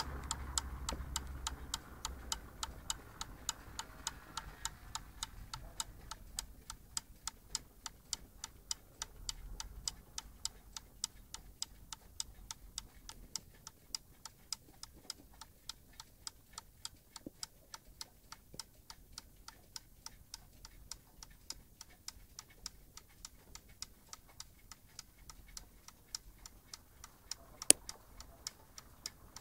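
Weight-driven cuckoo clock with a swinging-figure pendulum, its escapement ticking in a rapid, even rhythm. One much louder click sounds near the end.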